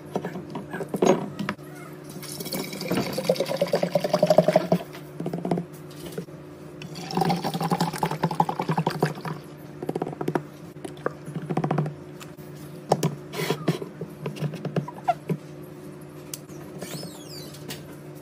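Liquid poured into a container twice, the pitch rising as it fills, with clicks and knocks of containers being handled in between over a steady low hum.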